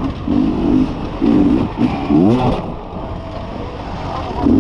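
Beta enduro motorcycle engine revving in short throttle bursts, three in the first two and a half seconds, the last a quick rising rev, then running lower and quieter before the revs rise again at the end.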